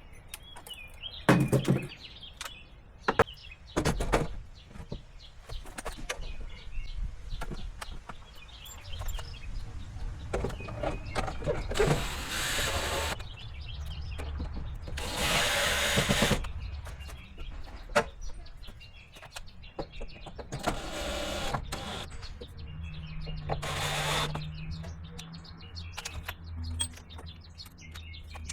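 Cordless power drill driving screws in four short runs of about a second each, after a few sharp knocks; birds chirp faintly in between.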